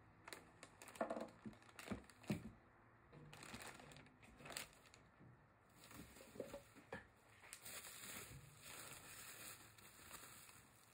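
Packaging being handled: a few knocks in the first couple of seconds as a power tool is set down on a plastic sheet, then bubble wrap and plastic crinkling as a wrapped item is pulled out of a cardboard box.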